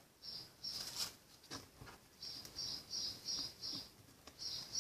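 Fluffy slime with beads being stretched and squeezed by hand, crackling and popping in a run of short, faint bursts.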